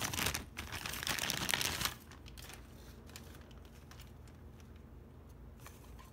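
Thin clear plastic toy bag crinkling as it is handled, stopping about two seconds in.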